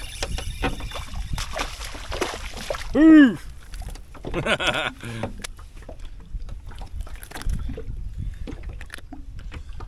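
A man's loud, short vocal whoop, rising then falling in pitch, about three seconds in as a crappie is hooked and swung into the boat, followed by a few muttered words. Under it, a steady low wind rumble on the microphone and light knocks and clicks from handling the rod, reel and fish.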